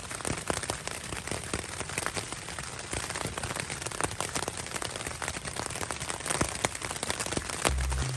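Rain falling, with many separate drops tapping sharply on a nearby surface over a steady hiss of rain. A low hum starts just before the end.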